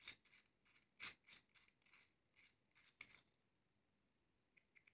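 Near silence, with a few faint clicks and scrapes of a metal microscope objective barrel being unscrewed by hand. The clearest click comes about a second in, another about three seconds in.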